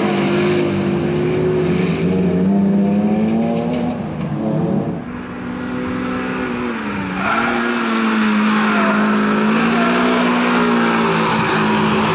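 Peugeot 306 hatchback's engine revving hard on a race track, the pitch climbing and falling with throttle and gear changes. The sound drops away briefly about five seconds in, then the engine dips and builds again.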